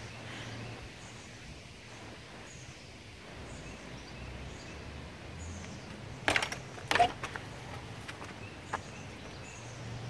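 Songbirds chirping faintly in the background over a low steady hum, broken by two short sharp bursts about six and seven seconds in, with a smaller tick a little later.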